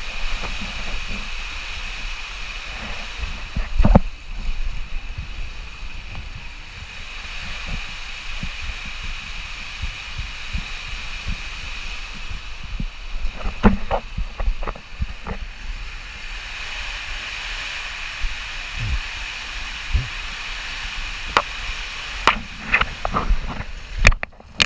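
Water rushing through an enclosed water slide tube as a rider slides feet-first down it, a steady hiss and rumble. Scattered knocks from the body bumping along the tube come in clusters about halfway through and near the end.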